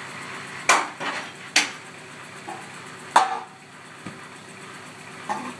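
A white metal patio-roof beam coming down and clattering on the ground: three loud metallic bangs in the first three seconds and a few lighter knocks after. Under it runs the steady idle of a Kubota tractor's engine.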